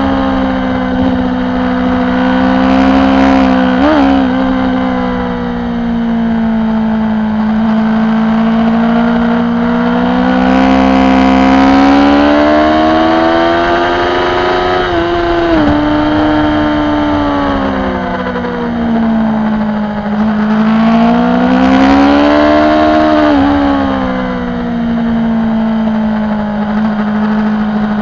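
BMW S1000RR's inline-four engine heard from onboard at race speed. Its pitch climbs and falls with the throttle, with sudden breaks at gear changes about four seconds in, around fifteen seconds in and again after twenty-three seconds.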